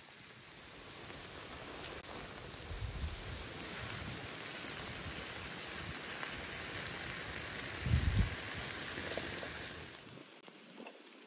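Chopped offal, potatoes and onions sizzling in a wide black iron pan, a steady hiss that drops away about ten seconds in. Low thumps come twice, the louder one near eight seconds.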